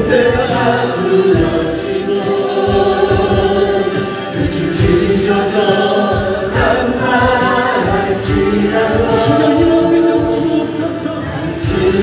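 Music: a choir singing, with regular drum hits underneath.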